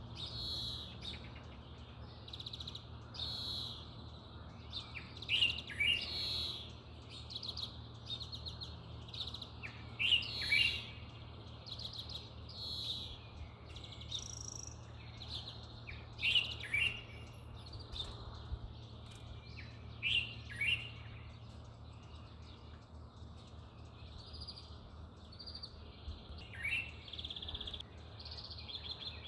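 Birds chirping and trilling outdoors in short repeated phrases every second or two, over a steady low background hum.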